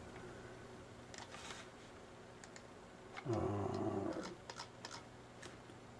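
Faint scattered clicks of a computer mouse as a web page is scrolled, with a short low hummed "mm" from a man's voice about three seconds in.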